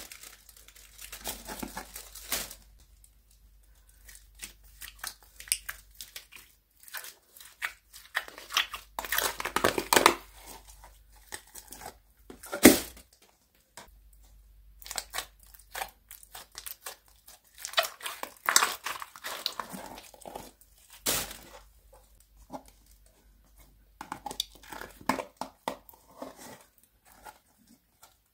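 Old slime being peeled out of thin plastic tubs and dropped into a bin lined with a black plastic bin bag: the bag and tubs crinkle and crackle and the slime stretches and tears, in irregular bursts with short pauses. One sharp, loud crack comes about halfway through.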